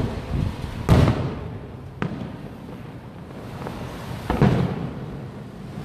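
Aerial firework shells bursting at a distance: separate booms, the loudest about a second in, another a second later and a couple more near the end, each trailing off in an echo.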